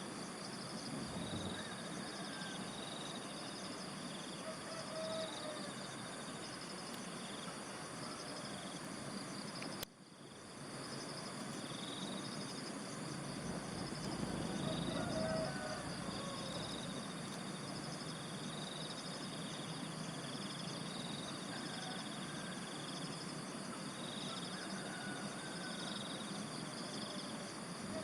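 Rural outdoor ambience: a steady, pulsing chorus of insects, with scattered bird calls over it. The sound briefly drops out about ten seconds in.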